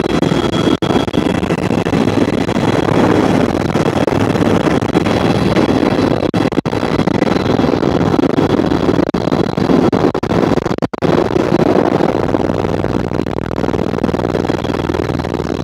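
Helicopter engine and rotor noise, a loud steady drone with a few momentary dropouts.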